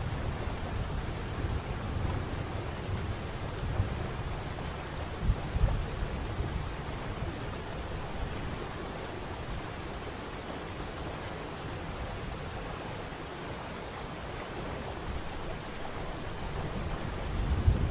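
Steady rush of a waterfall, with a deep rumble that swells and fades and grows stronger near the end. A faint, steady high-pitched whine sits above the water noise.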